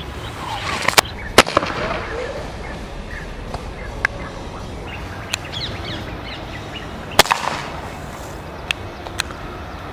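Sharp cracks from a CO2 BB air gun, the two loudest about a second and a half in and about seven seconds in, with smaller clicks between them. Birds chirp in the background.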